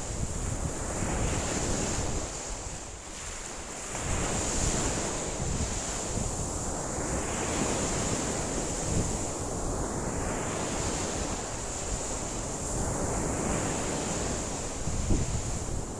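Wind-driven lake waves washing and breaking against the shore, surging in every few seconds, with strong wind buffeting the microphone in a low rumble.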